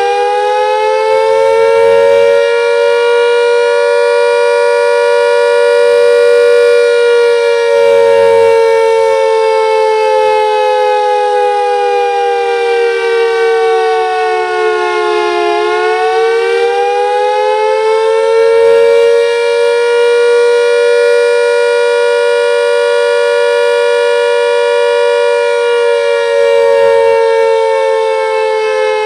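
Castle Castings electric mechanical siren sounding two close tones together: it winds up and holds high, slides down about halfway through, winds back up and holds, then starts to fall again near the end. The slow rise and fall is typical of the siren's Attack signal.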